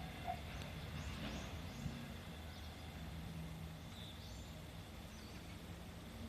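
A level-crossing warning alarm gives its last beat just after the start and stops. Then come a faint low rumble, as the freight train pulls away, and a few short bird chirps.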